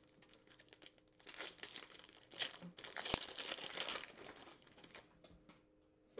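Foil wrapper of a football trading card pack being torn open and crinkled by hand. It is a dense crackle that starts about a second in, is loudest around three to four seconds with one sharp click, and dies away near the end.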